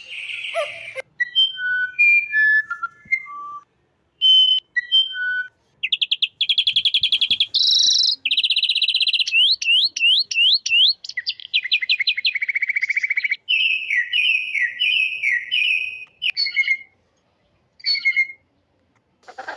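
Birds calling in a sequence of different calls. It opens with separate clear whistled notes at varying pitches, then about six seconds in come fast trills and rapid runs of rising chirps, and it ends with a couple of short chirps.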